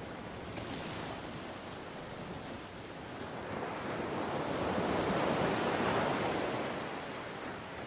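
Ocean surf: waves washing in, one wave swelling to a peak about halfway through and then ebbing away.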